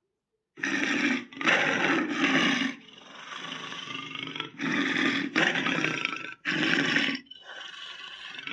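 Monster roar sound effects: after a brief silence, a series of loud roars, each about a second long, with quieter growling stretches between them.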